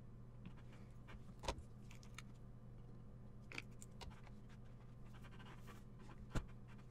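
Light clicks and taps of makeup products and a brush being handled and set down, with two sharper knocks about a second and a half in and near the end, over a steady low hum.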